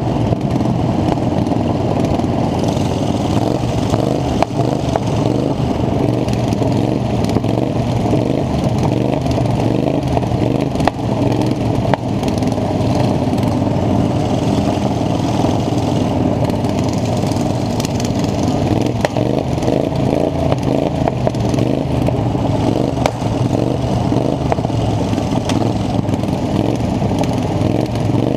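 Racing lawn mower's small engine running hard and steady, with scattered rattles and knocks.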